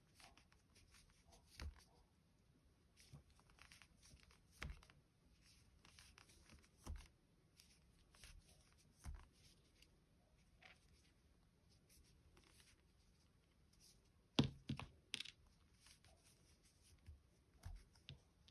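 Faint handling sounds of crocheting: soft rustles and scattered light clicks as a metal crochet hook works plush yarn. There is a short cluster of louder clicks about fourteen seconds in.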